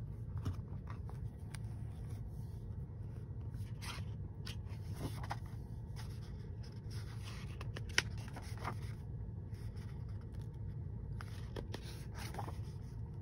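Pages of a hardcover picture book being opened and turned by hand: soft paper rustles and scrapes over a steady low hum, with one sharp tick about eight seconds in.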